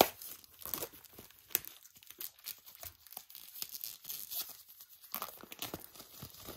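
Packaging wrap being torn open and crumpled by hand, in a run of irregular crackles and short rips.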